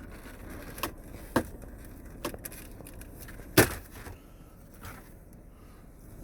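Plastic retaining clips of the Cadillac SRX's chrome dash trim snapping loose as the trim is pried out: a few sharp snaps spread over about four seconds, the loudest about three and a half seconds in.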